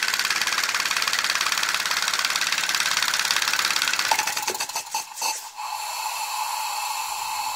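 Homemade syringe compressed-air engine running fast with a rapid, even puffing of exhaust air and rattle of its wooden linkage. About halfway through it slows and stops with a few ticks, leaving a steady whistle of compressed air escaping.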